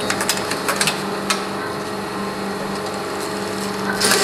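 Computerized flat knitting machine running, its carriage traversing the needle bed: a steady mechanical whir and hum with several sharp clicks in the first second and a half, and a louder rush starting near the end.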